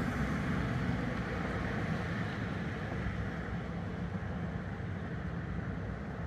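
Steady low rumbling background noise with no distinct events, easing slightly in level.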